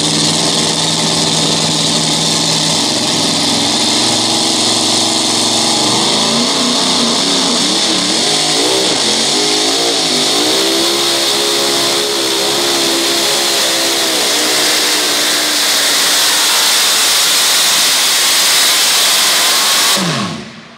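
Supercharged engine of a two-wheel-drive pulling truck at full throttle under load. Its revs waver up and down through the middle, and near the end the sound drops away with a falling pitch.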